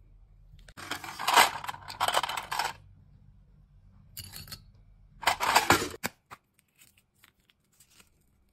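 Crisp rustling and light clatter of packaging and small hair accessories being handled, in three bursts, then a few light clicks.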